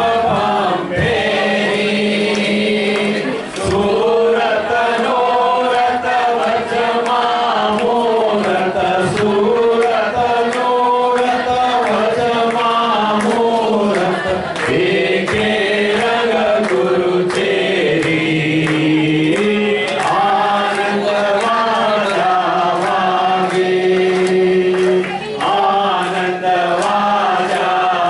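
A group of devotees singing a Hindi bhajan together, with a steady melody carried in unison and hand claps keeping time.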